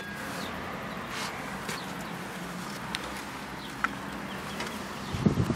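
A single sharp click at the very start as the Mitsubishi Dion's fuel filler door release lever is pulled, then a steady low background with a few faint ticks. Rumbling wind or handling noise on the microphone near the end.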